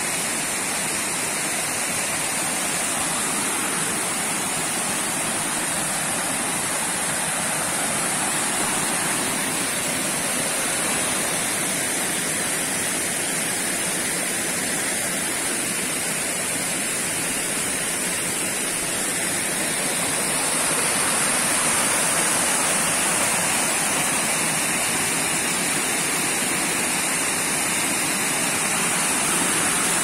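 Whitewater of a waterfall rushing over a rocky riverbed cascade, a steady, even rush that grows slightly louder about two-thirds of the way through.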